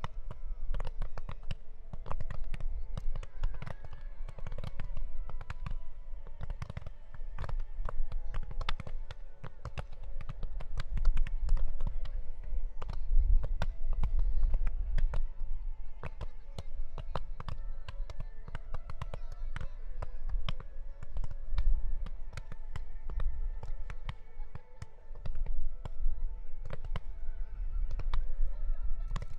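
Fireworks show: a rapid, continuous barrage of shells bursting, many bangs and crackles a second over a deep rumble, with the show's synchronized music playing underneath.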